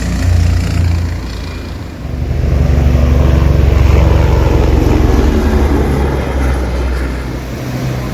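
Jet aircraft engines passing low overhead: a deep rumble with steady engine tones that swells about two seconds in and then eases off.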